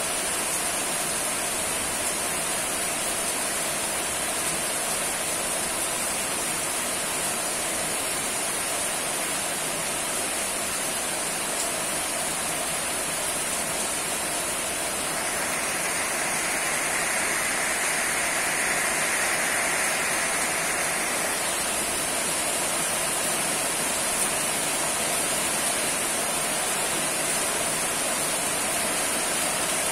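Steady rainfall, an even hiss with no breaks, growing a little stronger for several seconds around the middle.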